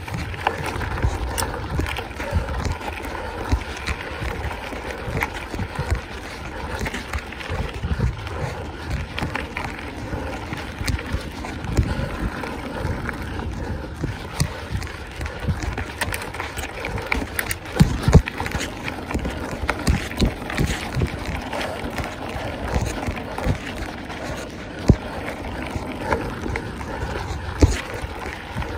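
Mountain bike being ridden along a trail: wind rumbling on the microphone, with tyre noise and frequent clicks and rattles from the bike over bumps.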